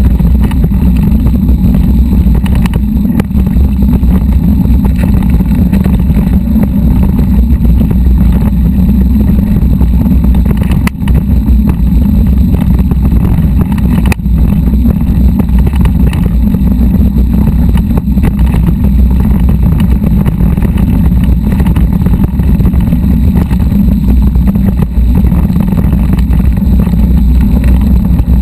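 Steady, loud low rumble of wind buffeting the microphone along with the rattle of a mountain bike rolling over a rocky dirt trail, with two short sharp knocks from bumps near the middle.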